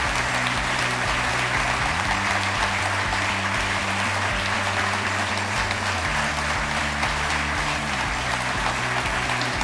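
Audience applauding steadily over background music of sustained low chords that change about every two seconds.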